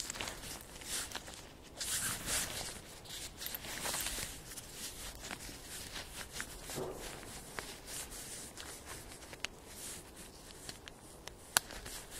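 Footsteps on a dry, leaf-strewn dirt trail, rustling about once a second. A single sharp click near the end is the loudest sound.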